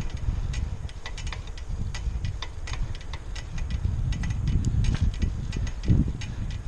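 Wind buffeting the microphone of a camera riding on a moving bicycle, a gusting low rumble that swells and drops, with frequent light clicks over it.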